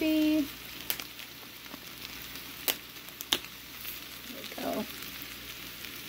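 Sausage, hot dogs and onions sizzling steadily in a cast iron skillet under a heap of raw cabbage. A few sharp clicks cut through the sizzle, about a second in and twice around three seconds in, with a brief rustle near the end.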